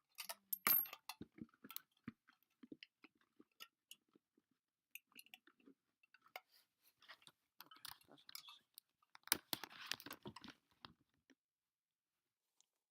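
Small parts and objects being rummaged through by hand: scattered clicks, light clinks and rustling, with a louder burst of handling about nine and a half seconds in.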